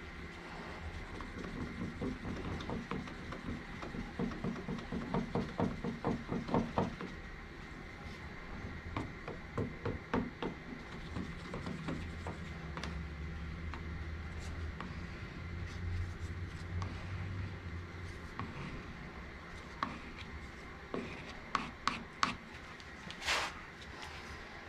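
Wooden stir stick scraping around the inside of a plastic mixing cup while stirring epoxy tinted black, in quick even strokes of about three a second that fade after a few seconds. A few sharp clicks and a short knock come near the end.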